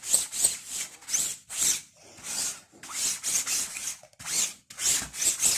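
A hand-held applicator rubbing black ink onto a screen-printing stencil, in repeated short scratchy strokes about two a second.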